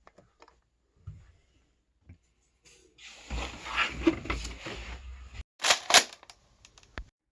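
A couple of seconds of rough rustling movement, then two sharp cracks about a third of a second apart, with a few faint clicks before and after.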